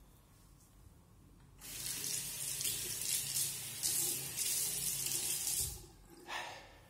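Bathroom tap running into the sink for about four seconds, starting about a second and a half in, as the safety razor is rinsed between shaving passes. A short burst of noise follows just before the end.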